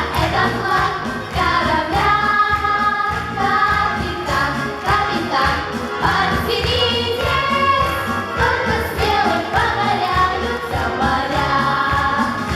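A choir singing a song over instrumental accompaniment with a steady beat.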